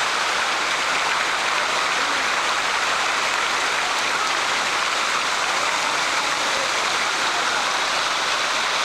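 Waterfall water pouring and splashing close by, an even, steady rush with no let-up.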